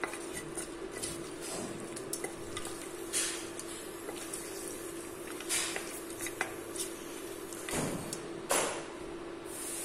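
A wooden spoon stirring diced onions and whole spices in oil in a stainless steel pot, scraping and knocking against the pot now and then over a steady low hum.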